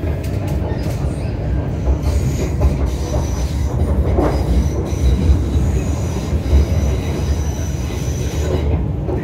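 MTR Kwun Tong line C-Train heard from inside the car while running: a steady low rumble of wheels on rail, with a thin high-pitched wheel squeal over it from about two seconds in until near the end, and a brief clatter a little past four seconds.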